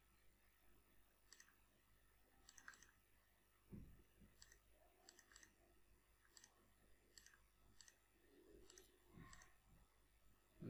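Faint computer mouse clicks, about a dozen, single and in quick pairs. One low thump about four seconds in.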